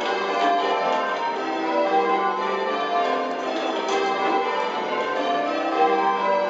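A ring of eight church bells change ringing spliced surprise major, the bells striking one after another in a steady, unbroken rhythm and ringing on over each other.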